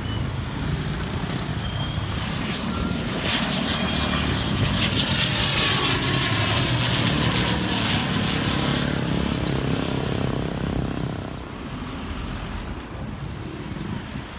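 Airliner's engines passing by: a steady rushing engine noise that builds over a few seconds, is loudest near the middle, then fades away.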